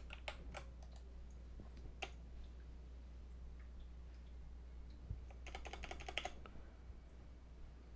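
Computer keyboard being typed on, faint. A few scattered keystrokes come first, then a quick run of keystrokes about five and a half seconds in.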